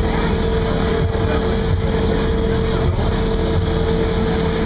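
Boat engine running, a steady low drone with a constant whine over it.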